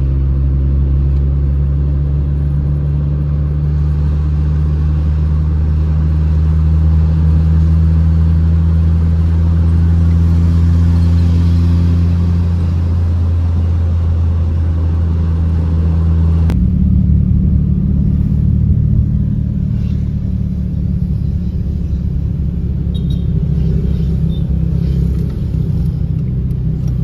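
A car on the move: a steady low engine and road drone. About two-thirds of the way through, the drone changes abruptly to a rougher, slightly higher rumble.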